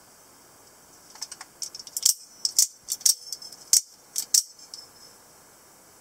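Microtech out-the-front automatic knife, its thumb slider worked so the spring-driven blade shoots out and snaps back again and again. This gives a quick run of sharp metallic clicks and snaps, about five of them loud.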